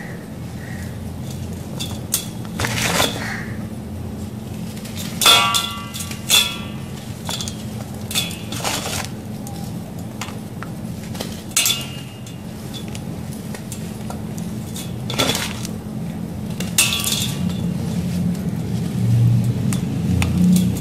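Dry gritty sand blocks crumbled by hand into a glass bowl: a steady gritty crunching and pouring of sand and crumbs, broken by several sharp clinks of chunks or fingers knocking the glass bowl, two of them ringing briefly about five and six seconds in.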